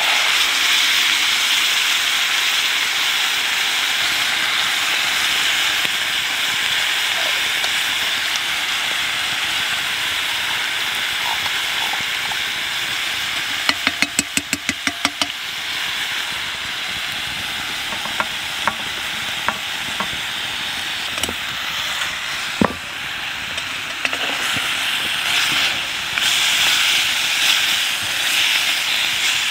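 Food sizzling in a cast-iron pot over a campfire, a steady hiss that is loudest as canned tomatoes are poured in and again near the end. About halfway there is a quick run of around ten sharp clicks as a spoon works in the pot, then a few single sharp ticks.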